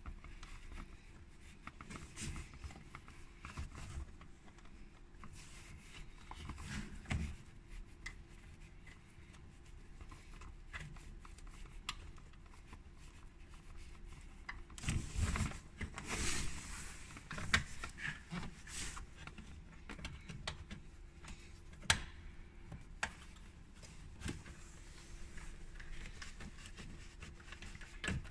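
Faint handling noises as a rubber seal on a Renault Mégane II's windscreen cowl is pressed into place by hand: scattered rustling and scraping with sharp clicks of plastic, and a louder spell of rubbing about halfway through. A faint steady hum sits underneath.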